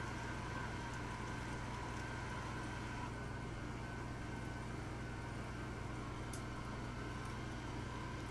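Electric stand mixer running its meat-grinder attachment, a steady motor hum with a whine as it grinds pork shoulder.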